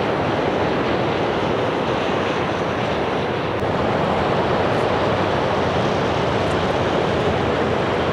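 Steady city street noise: a constant hiss of road traffic with tyres on wet roads.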